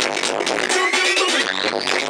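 Electronic-sounding dance music played loud over a stage PA, with a steady beat and a sweep rising in pitch through most of the second half.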